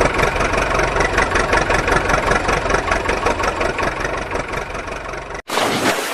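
An engine idling with a rapid, even chug. It cuts off abruptly about five and a half seconds in, and a different sound starts.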